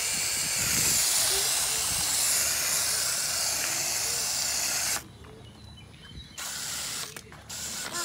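Coil-cleaning foam gun spraying foaming cleaner onto an evaporator coil: a steady hiss that cuts off suddenly about five seconds in.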